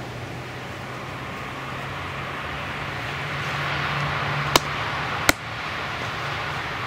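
Wind rushing through pine trees, swelling and easing, with a low steady hum underneath. Two sharp knocks sound a little under a second apart near the end, the second a steel splitting blade being struck down into a tree stump.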